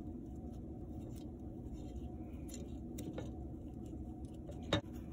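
Faint handling sounds of yarn being drawn through a hole in a clay loom frame with a plastic weaving needle: light scratches and a few soft ticks over a steady low hum, with one sharp click near the end.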